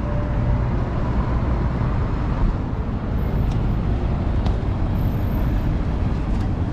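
Steady road traffic on a busy city street, a continuous low rumble of passing cars and buses.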